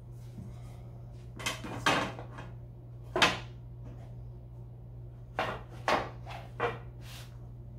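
Wooden canvas stretcher bars and a steel carpenter's square being handled and laid against each other: a series of short knocks and clacks, the loudest about three seconds in, over a steady low hum.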